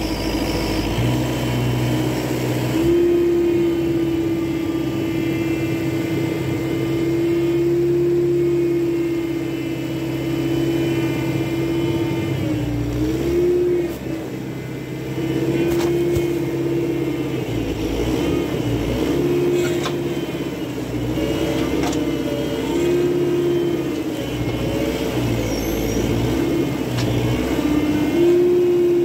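Engine of a front-loader tractor running at raised revs. Its pitch holds steady for a while, then dips and rises again and again as the loader works in to spear a wrapped round bale.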